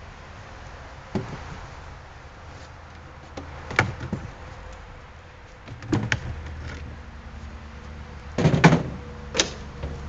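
Beehive equipment being handled: a hive top and a drip tray lifted, set down and slid, giving a handful of separate knocks and scrapes. The loudest cluster of knocks comes near the end.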